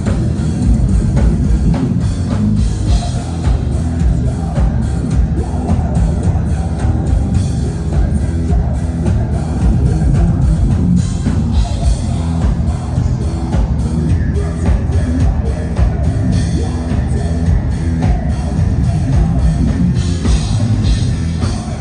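Metal band playing live and loud: drum kit keeping a steady beat under electric guitars.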